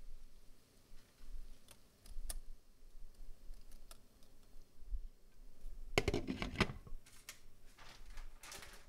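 Light clicks of kitchenware being handled, with a short run of clattering knocks about six seconds in and a few more near the end.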